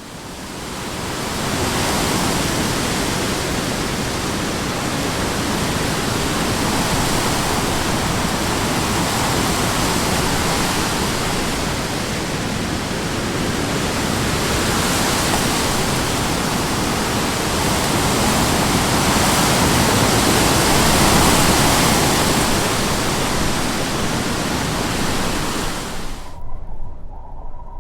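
Strong wind blowing: a steady, full rushing noise that swells and eases slowly. It fades in over the first couple of seconds and cuts off abruptly about a second and a half before the end, where a quieter, lower sound takes over.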